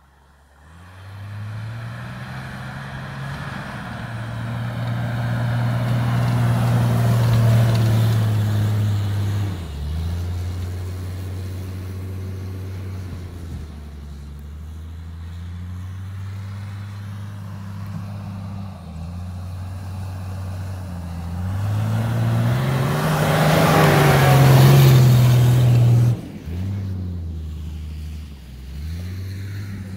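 Mercedes W463 G-Class engine driving over sand. Its note rises and falls with the throttle, drops once about a third of the way in, then climbs to its loudest with added tyre and drive noise before cutting back sharply near the end.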